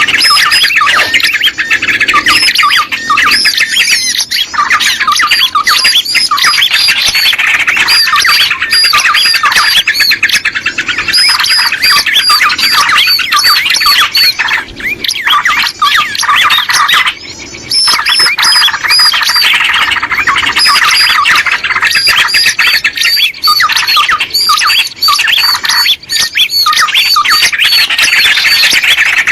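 Dense, unbroken chatter of many small birds calling over one another, the kind of recording played as a lure (pikat) to draw small birds in. It drops out briefly about 17 seconds in.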